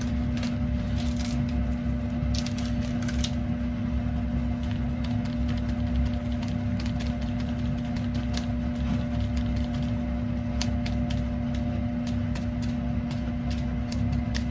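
Steady electrical hum from a kitchen appliance, with scattered light ticks and crinkles as bonito flakes are shaken from their packet onto the tofu.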